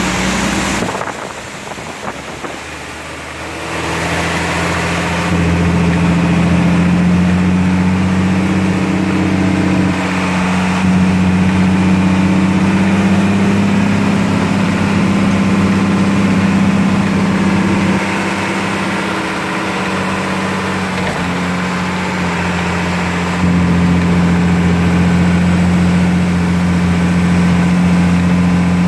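A steady engine-like hum with an even hiss over it. It drops away about a second in and comes back about four seconds in, then runs steadily.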